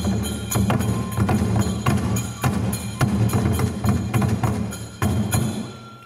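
Shoulder-slung Japanese folk drums struck with sticks in a steady rhythm of sharp strikes over a deep, full drum sound. The drumming stops shortly before the end, with the last strikes dying away.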